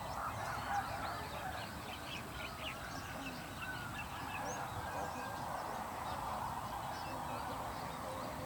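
A dense chorus of many birds calling at once: a steady overlapping chatter with many short, high chirps scattered over it.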